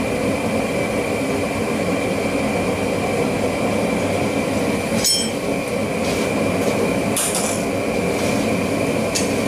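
Propane gas forge burner running with a steady roar and a thin steady whistle, and a few faint clicks over it.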